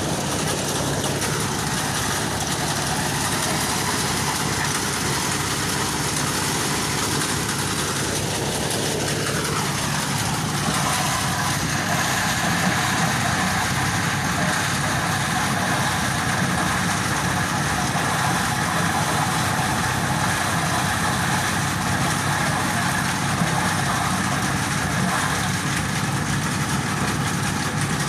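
Engine-driven corn thresher running steadily. About nine seconds in, a tone in its drone slides down in pitch, and then it settles back into an even run.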